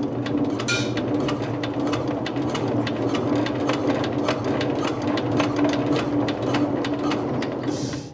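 Diesel engine turning over with a rapid, even clatter over a steady hum, dropping away sharply near the end.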